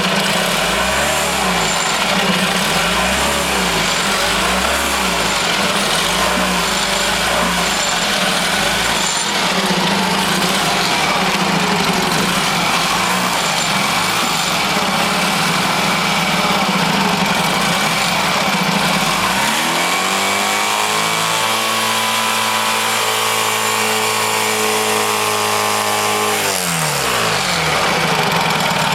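Honda 75 four-stroke outboard motor running in a test barrel of water, idling at first, then revved up about twenty seconds in, held at a steady higher speed for several seconds, and brought back down to idle near the end.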